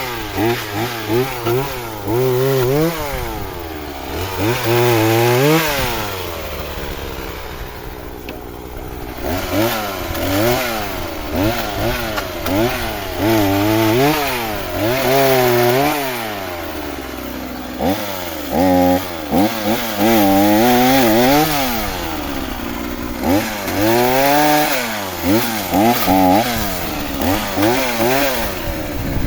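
Chainsaw cutting firewood, revving up and falling back again and again every second or two, with a few short spells at a lower, steadier pitch between the bursts.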